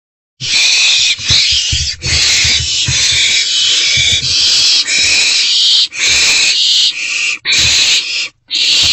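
Barn owlets making long, harsh hissing calls, one after another with short breaks, with low bumps underneath. These are the owlets' food-begging hisses while they jostle over a freshly delivered vole.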